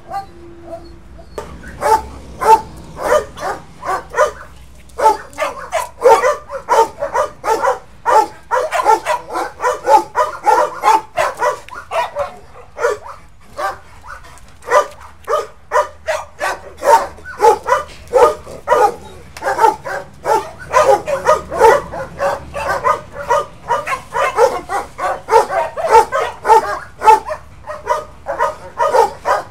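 Dog barking rapidly and continuously, about two to three barks a second, starting about a second and a half in.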